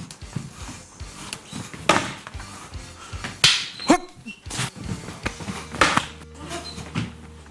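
Rattan arnis sticks striking in quick succession, a string of sharp cracks a second or so apart in a continuous striking drill, with short yells, over background music.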